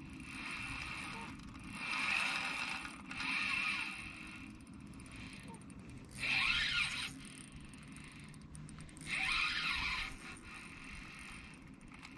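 Spinning reel running in about five separate bursts of about a second each, under the load of a large brown trout fighting on the line.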